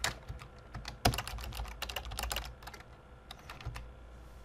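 Computer keyboard keystrokes while a line of code is being deleted: a quick cluster of key clicks starting about a second in, then a few scattered presses.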